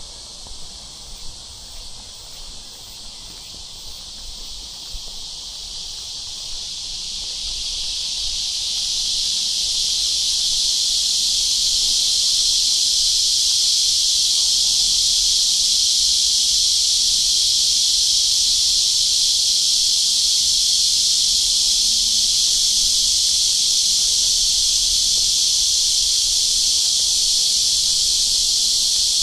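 Cicadas buzzing in a continuous chorus, growing louder over the first ten seconds or so and then holding a loud, steady high-pitched drone.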